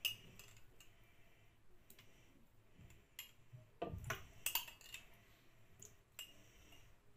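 Sparse, faint clicks and light knocks of a spoon against a glass mug while scooping out tablespoons of pasta cooking water, with a louder knock about four seconds in.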